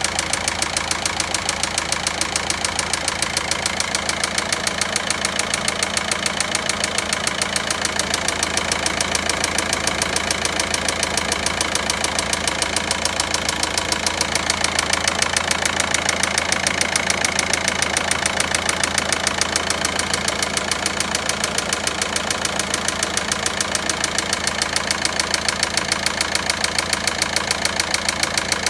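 Volkswagen Passat 1.9 engine idling steadily with a fast, even knocking tick in time with the engine. This is the abnormal engine noise being diagnosed.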